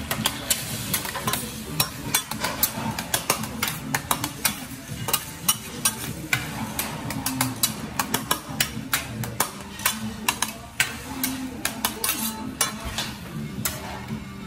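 Metal spatula and fork scraping and clicking rapidly against a steel teppanyaki griddle as egg is stirred into a scramble, with a light sizzle of the egg cooking underneath.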